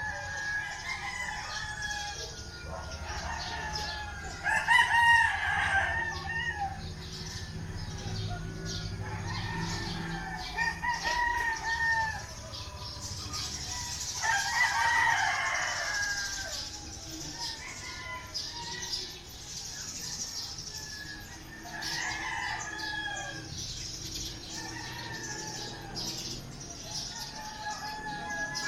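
Several roosters crowing in turn throughout, their crows sometimes overlapping, some near and some farther off. The loudest crows come about five seconds in and again around fifteen seconds in.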